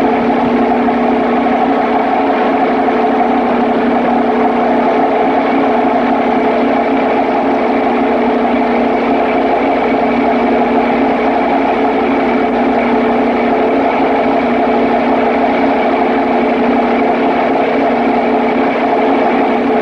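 Papp noble-gas engine running loudly and steadily, a constant mechanical hum with several held tones that neither rises nor falls.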